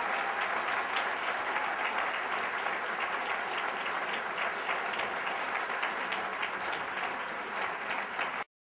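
An audience applauding steadily with many overlapping hand claps. The sound cuts off abruptly near the end.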